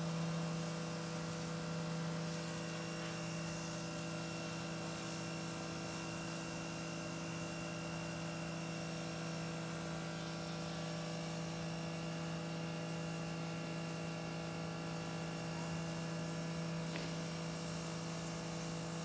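Steady low machine hum, one strong low tone with several fainter steady tones above it, unchanging throughout.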